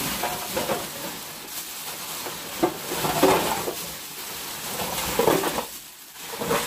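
Ice and meltwater being tipped out of a fish shipping box: a steady splashing, rattling rush with a few louder clatters.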